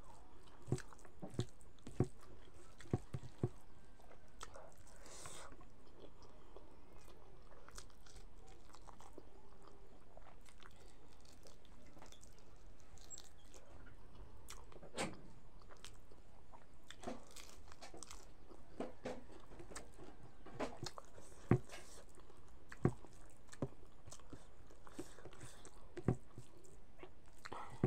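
A person chewing and crunching food close to the microphone, with short crunchy bites scattered through, bunched in the first few seconds and again in the second half.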